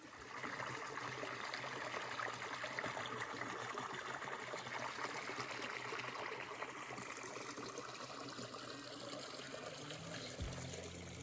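Water trickling and running steadily, like a shallow creek flowing over rocks. Music fades in near the end.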